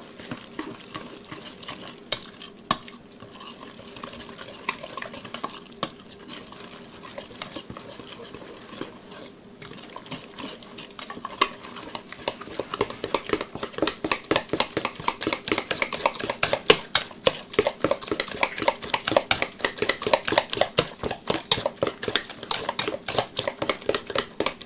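A hand-held King Arthur dough hook stirring stiff bread dough in a stainless steel bowl, the utensil scraping and knocking against the metal and squelching through the dough as the wet and dry ingredients are mixed. It starts with scattered strokes, then about halfway through turns into fast, regular, louder strokes, about four a second.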